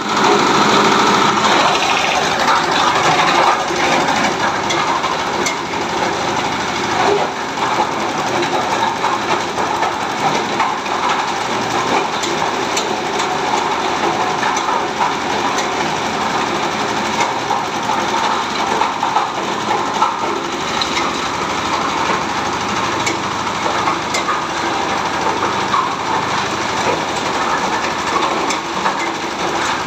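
Coconut husk shredding machine running under a belt drive from a small stationary engine, with a steady mechanical din and frequent small knocks as husks are fed in and torn into coir fibre.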